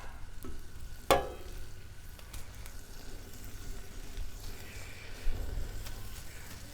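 Bacon and rice sizzling on a Blackstone flat-top griddle, with a few light ticks and one sharp clack about a second in.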